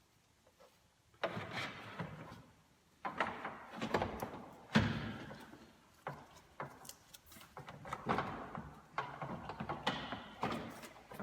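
New radiator being worked down into a pickup's core support, giving irregular scraping and rubbing with knocks and thunks. The loudest thunk comes about five seconds in.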